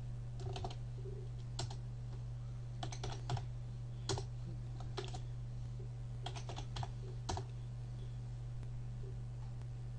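Computer keyboard typing: irregular key clicks in short runs, thinning out about three quarters of the way through, over a steady low electrical hum.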